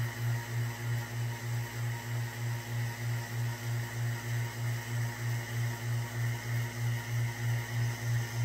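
Low electrical-mechanical hum of a running magnetron sputtering rig with its plasma lit, throbbing about four times a second, over a faint steady high whine.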